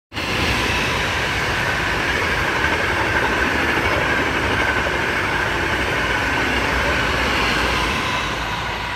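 NS intercity train of blue-and-yellow coaches, pushed by an electric locomotive at the rear, passing at speed: a steady rush of wheels on rail with a faint steady whine, easing slightly near the end as it draws away.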